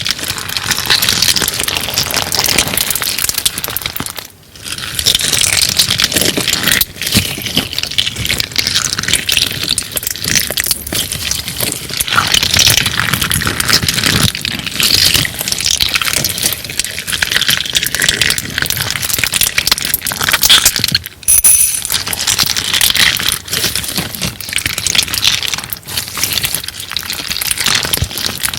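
Homemade crunchy clear slime being squeezed and kneaded by hand: a dense run of crackling and crunching, with brief breaks about four seconds in and again past the twenty-second mark.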